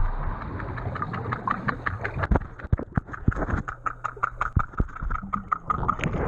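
Muffled underwater sound picked up by a GoPro in its waterproof housing on a pool floor: a thump at the start, then irregular clicks and knocks over a steady low hum, as a swimmer comes down to the camera and stirs up bubbles.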